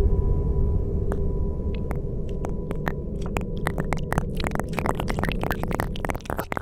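Trailer sound design: a low rumbling drone with faint steady tones, fading, while sharp clicks start sparse about a second in and come faster and denser toward the end.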